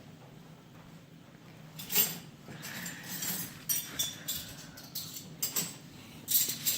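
Dishes, glasses and cutlery clinking and clattering as a dishwasher is unloaded: a run of sharp, separate clinks starting about two seconds in, the loudest at the start of the run and again near the end.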